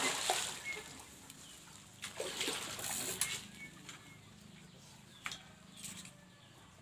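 A hooked patin (Pangasius catfish) thrashing at the pond surface by the bank: a big splash at the start, then smaller splashes about two and three seconds in as it is played toward the net.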